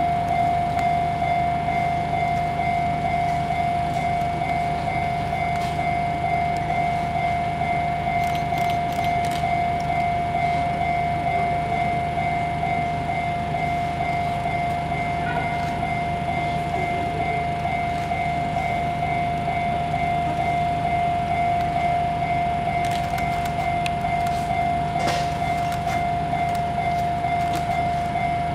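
Japanese railway level-crossing warning bell ringing without a break, one high electronic ding repeated rapidly and evenly, signalling an approaching train.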